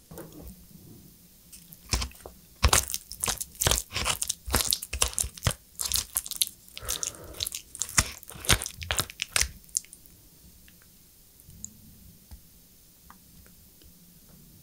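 Wooden spoon scooping and scraping spicy lobster fried rice and melted cheese on a metal tray: a dense run of crisp crackles and scrapes that stops about two thirds of the way in.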